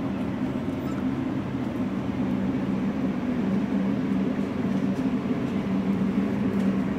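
Steady low mechanical hum, unchanging, like a running fan or ventilation unit.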